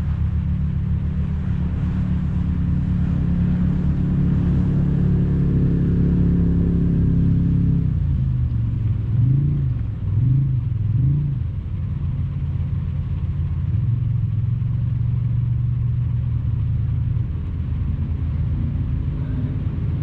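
Snowmobile engine running steadily, then revved up and down three times in quick succession about halfway through before settling back to a steady, lower pitch.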